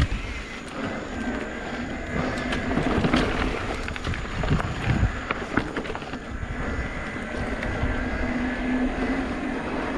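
Mountain bike being ridden along a dirt trail: tyres rolling and the bike rattling with frequent sharp knocks over bumps, with wind noise on the microphone.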